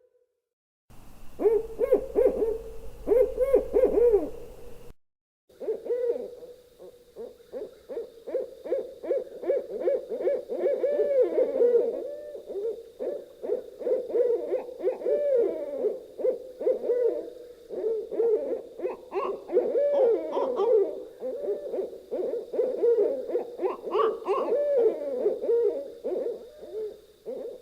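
Owls hooting: a short run of hoots, a brief break, then a long dense series of quick, overlapping hoots. A faint steady high tone sits underneath the longer series.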